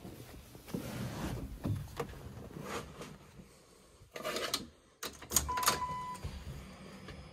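Rustling and clicks from someone settling into a car's driver's seat and working the switches and controls by the steering column, with a short steady beep about halfway through.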